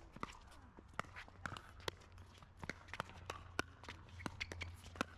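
Plastic pickleballs being struck with paddles: a string of sharp, irregular pops, from this court and the neighbouring courts, with shoes moving on the hard court surface.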